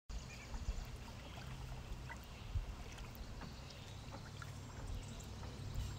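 Faint outdoor ambience: a low, steady rumble with a few light ticks scattered through it.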